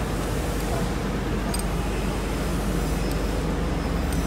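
Steady machinery noise: a constant low hum under an even hiss, with a couple of faint clicks, one about a second and a half in and one near the end.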